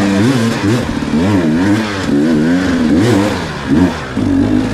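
Dirt bike engine revving up and down repeatedly as the throttle is worked, its pitch rising and falling about five times.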